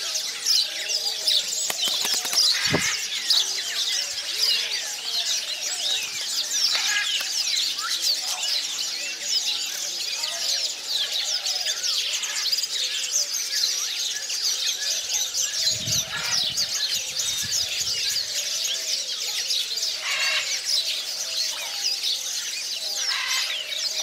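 Many small birds chirping and twittering together in a dense, continuous aviary chorus. There are a couple of brief low rumbles, about three seconds in and again around sixteen to eighteen seconds in.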